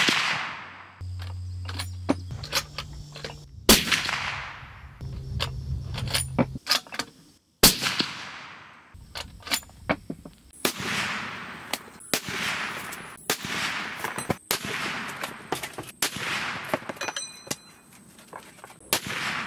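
A suppressed .300 Winchester Magnum bolt-action rifle (Ruger M77 Hawkeye Hunter) firing a string of shots a second or few apart. Each sharp report trails off in a fading echo, with smaller clicks and knocks between the shots.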